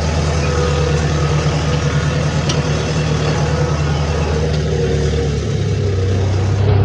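Motor vehicle engine running steadily, its low note shifting to a different pitch about five and a half seconds in.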